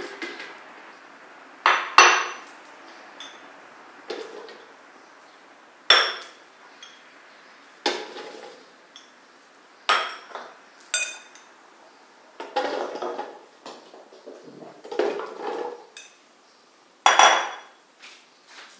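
Glass bowls knocking and clinking against a stone countertop and fruit pieces tipped into a plastic blender jug: a series of separate knocks a second or a few seconds apart, the loudest about two seconds in.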